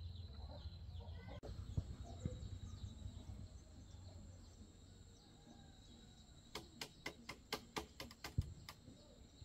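Faint rural outdoor sound: birds chirping over a steady high whine, with a few dull thumps, and a quick run of about ten sharp taps, roughly four a second, near the end.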